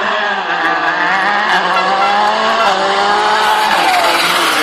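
Rally car's engine running hard as the car approaches on a snowy stage, its pitch rising and falling with the throttle and dropping near the end.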